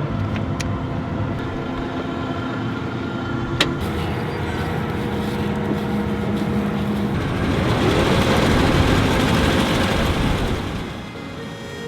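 Heavy harvest machinery running, a steady engine hum with a sharp click about three and a half seconds in; the sound swells louder with a rushing noise past the middle, then fades near the end.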